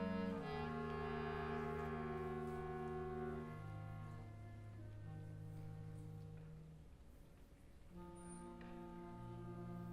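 Concert band of brass and woodwinds playing slow, held chords; the sound fades to soft about seven seconds in, then a new low brass chord swells in about a second later.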